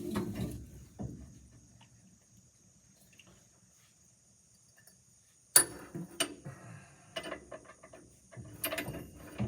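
Metal hand-tool work on a disc mower's blade mount: a single sharp metallic click about five and a half seconds in, another shortly after, then a run of quick clicks and rattles near the end from a geared ratchet wrench working a blade bolt.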